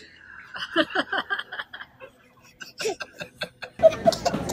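Laughter: a run of quick, breathy 'ha' pulses, about six a second, followed by a second short burst of laughter about three seconds in.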